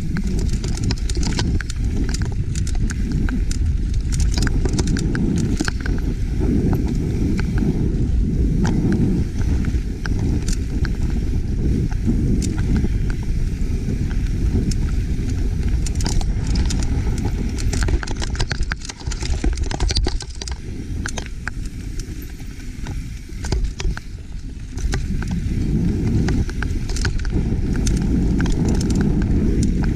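Mountain bike riding fast over rocky, loose singletrack: a steady rumble of wind and tyre noise on the camera microphone, with frequent sharp rattles and clicks as the tyres, frame and chain hit rocks. It eases off for a few seconds a little past the middle, then picks up again.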